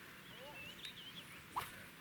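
Small birds chirping in quick short calls over a steady hiss, with one sharp click about one and a half seconds in.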